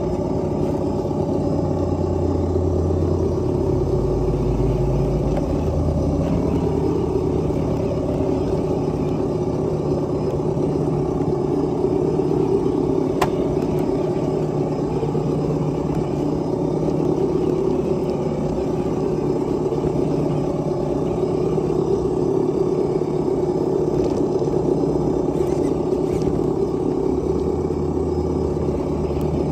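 Simulated truck engine sound from a Traxxas Sense ESS-Dual sound module on a TRX-4 RC crawler, running steadily at low speed. A deeper rumble swells a few seconds in and again near the end.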